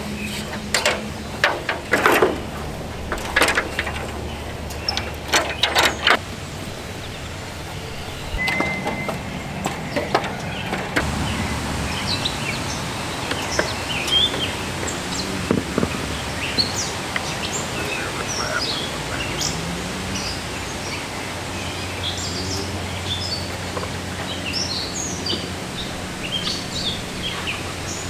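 A string of sharp knocks and clanks in the first six seconds as a tall tripod ladder is set upright, then open-air ambience with many short bird chirps over a low steady hum.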